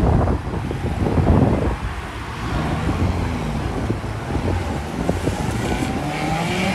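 Wind buffeting the microphone over street traffic: cars and motorcycles passing on the road, with a faint engine hum rising near the end.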